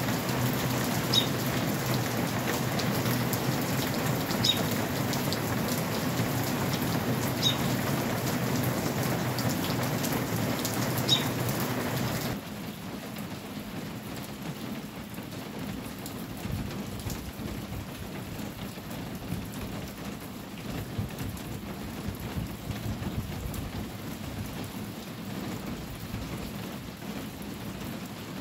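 Steady rain pattering on a corrugated tin roof. About twelve seconds in it drops abruptly to a quieter level. In the louder first part a short high chirp sounds about every three seconds.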